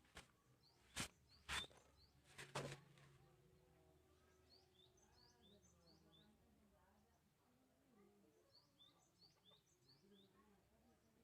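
Four or five sharp clicks or knocks in the first three seconds, then faint chirping of small birds, short high chirps repeating.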